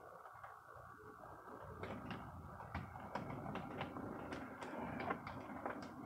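HO scale model diesel locomotive pulling a short string of freight cars along the track: a steady motor and gear hum with clicking of wheels over rail joints and turnouts. It gets louder about two seconds in.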